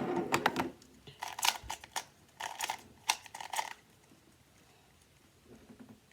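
Plastic 3x3 puzzle cube being turned quickly by hand, its layers clicking in four short bursts over the first few seconds before it goes quiet.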